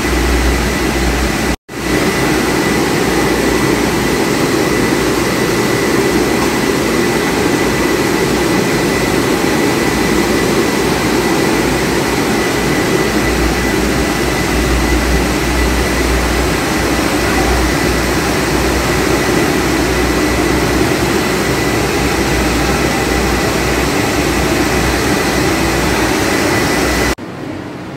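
French fries processing line machinery running: a steady, loud mechanical drone of motors and blowers with a low hum and a thin, steady high whine over it. It breaks off for an instant near the start.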